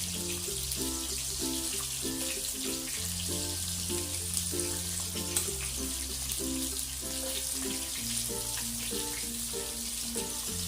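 Background music with a steady beat: a bass line that changes note every few seconds under short repeating chords. Beneath it is a steady sizzle of prawns deep-frying in hot oil.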